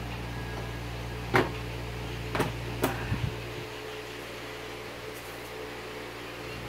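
Steady electrical or fan-like hum. Over it come five sharp knocks and clicks of hard objects being handled, between about one and three and a half seconds in. The first knock is the loudest.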